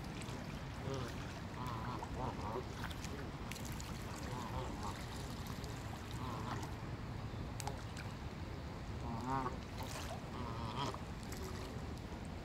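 A flock of Canada geese on the water giving short, scattered honking calls every second or so, over a low steady background rumble.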